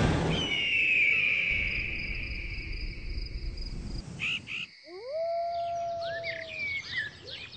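Wild animal sounds: insects chirping steadily, a long falling cry early on, then an animal howl that rises and holds on one note, followed by a few short yelps near the end.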